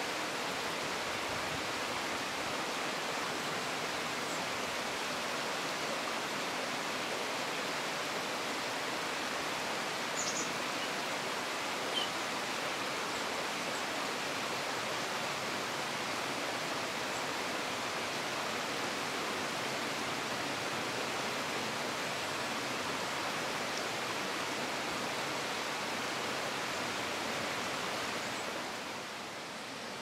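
Steady outdoor rushing noise with no clear pitch, with a faint, brief high chirp about ten seconds in. The noise eases a little near the end.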